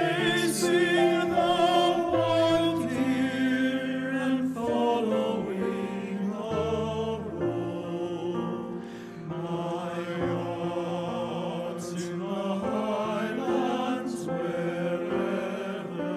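A choir singing a slow piece in sustained chords, many voices together with a wavering vibrato, the harmony shifting every second or so.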